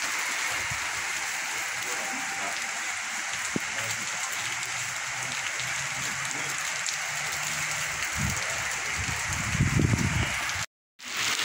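Steady rain falling on a wet cobblestone street, an even hiss. Near the end a brief low rumble, then the sound drops out for a moment.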